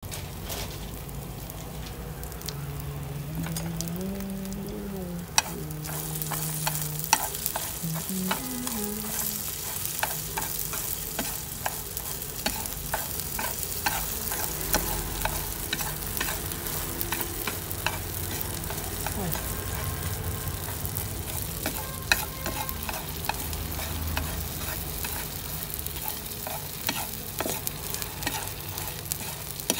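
Small anchovies frying crisp in oil in a metal pan, sizzling, while they are stirred: the utensil scrapes and clicks against the pan many times. The sizzle gets louder about five seconds in.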